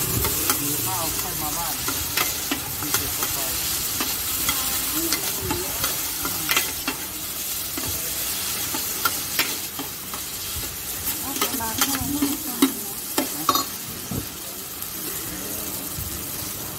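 Pad thai stir-frying in a large, shallow steel pan: steady sizzling, with irregular metallic clacks and scrapes as a metal ladle and spatula toss the noodles against the pan.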